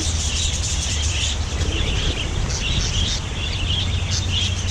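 Budgerigars chattering and chirping in an aviary, a busy, broken twitter of many short calls, over a steady low rumble.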